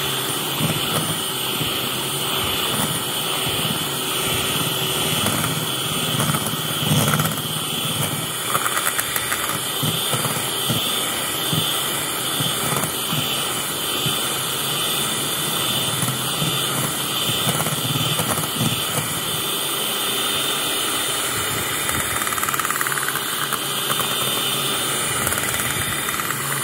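Electric hand mixer running steadily, its twin beaters whipping a thick cream mixture in a glass bowl.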